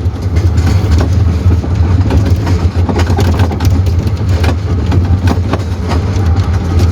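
Small tourist train running, heard from aboard: a steady low rumble with frequent rattles and knocks.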